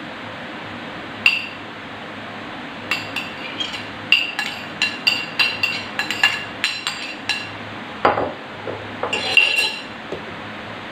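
Metal spoon clinking and scraping against a bowl as scrambled egg is knocked out onto a plate: a single tap, then a quick run of about a dozen sharp ringing taps from about three seconds in, a duller scrape and a few more clinks near the end.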